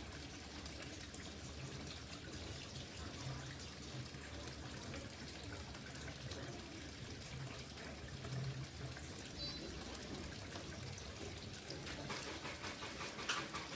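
Steady trickle and splash of water flowing in a small pump-fed fountain, with more splashing near the end.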